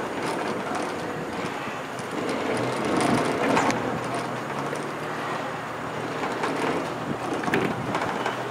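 Railway turntable rotating with a steam locomotive aboard: a steady rumbling, grinding run of its wheels on the rails, with a faint low hum underneath and a few small clicks.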